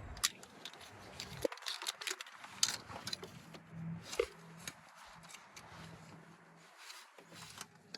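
Scattered light clicks and small knocks of hand tools and parts at irregular spacing while a spark plug is fitted in a Subaru engine bay, with a faint low hum under them.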